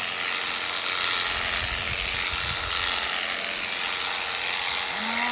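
Electric sheep-shearing handpiece running steadily as it cuts through a sheep's wool, with a few low knocks partway through.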